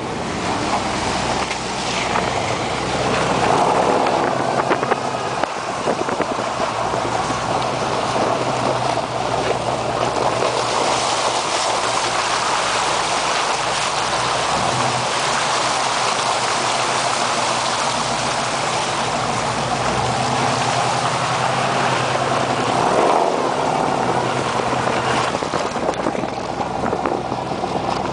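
A 4x4 truck's engine running steadily as its tyres plough through a muddy water hole, with a continuous rush of splashing water that is heaviest through the middle.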